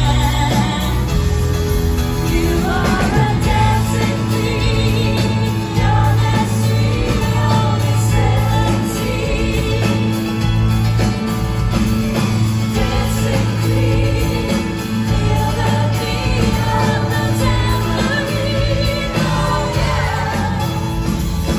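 Live pop-rock band playing through an arena PA: male and female singers over acoustic and electric guitars, keyboard and drums, heard from among the crowd.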